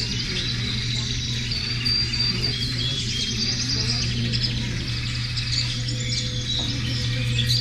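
Recorded birdsong and insect chirping, many short twittering calls, played as an exhibit's nature soundscape over a steady low hum.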